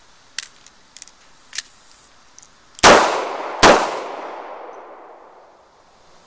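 A few light clicks of the gun being handled, then two shots from a snub-nosed revolver under a second apart, each ringing out with a long echo.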